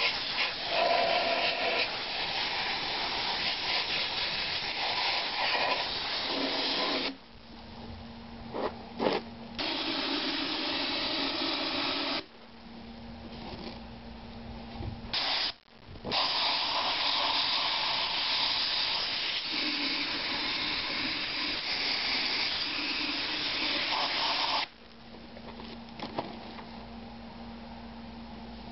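Sandblasting gun hissing in long bursts, stopping and restarting several times, as it blasts rust and scale off Mercruiser 4.3 V6 exhaust manifold parts. A steady low hum is heard in the pauses.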